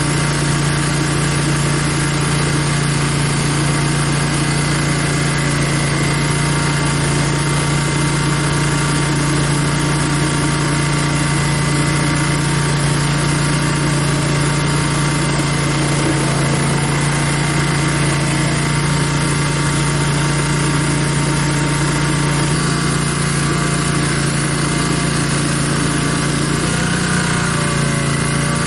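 Barreto stump grinder's gas engine running steadily under power, its pitch wavering slightly near the end.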